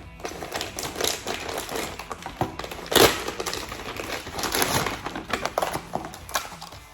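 Packaging crinkling and rustling in irregular bursts as a parcel of sweets is unwrapped by hand, with one louder sharp snap about three seconds in.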